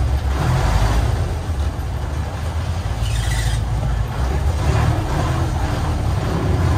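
A passenger ferry's engine running with a steady low rumble as the boat lies against the pier, with a brief hiss about three seconds in.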